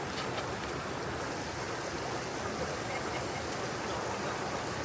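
A valley stream flowing: a steady, even rush of water.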